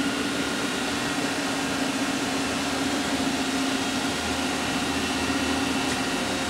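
Steady hum of a powered-up Mori Seiki SL-3H CNC turning center: a constant low tone with an even fan-like hiss.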